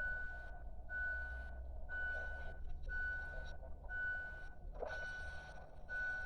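An electronic alarm beeping steadily on one high tone, about once a second, over a heavy low rumble of wind buffeting the microphone.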